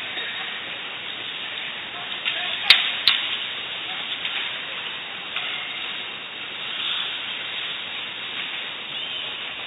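Ice hockey rink ambience during play: a steady wash of noise with indistinct spectator voices, and two sharp knocks close together about three seconds in.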